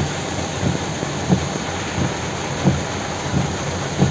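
Heavy rain and muddy floodwater rushing down a street, a steady wash of noise, with soft low thumps at a regular beat of about one every two-thirds of a second.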